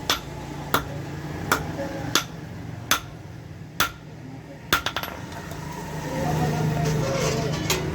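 Hammer blows on metal at a steady working pace, about one sharp strike every three-quarters of a second, with a quick run of three or four lighter taps about five seconds in. A louder background din of noise and voices builds over the last two seconds.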